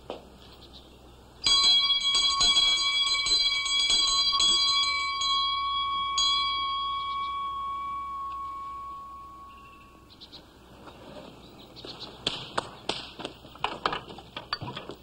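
A porch-mounted bell swung on its chain, rung rapidly about three strokes a second for some four seconds, then left ringing and fading out. Scattered light knocks follow near the end.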